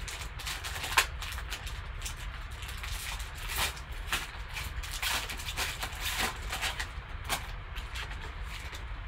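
Foil trading-card pack wrapper crinkling and crackling as it is torn open and the cards are slid out, in irregular crackles with a sharp one about a second in, over a steady low hum.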